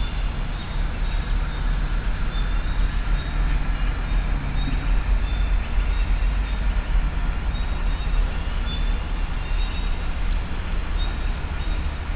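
Birds calling faintly now and then in short high notes, over a steady low rumble that is the loudest sound throughout.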